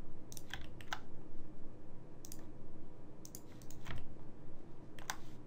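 Scattered clicks of a computer mouse and keyboard while editing a 3D model, some in quick pairs, over a faint room hum.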